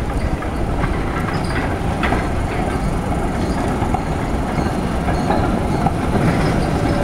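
Articulated street tram passing close by, its wheels running on the rails with a steady rumble and a few sharp clicks over the track, growing a little louder toward the end.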